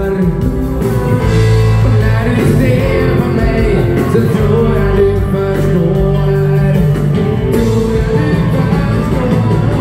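Live dansband music: a singer over a full band.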